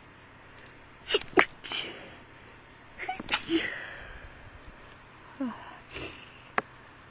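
A person sneezing twice, about two seconds apart, in a hay fever bout, followed by a few softer sounds.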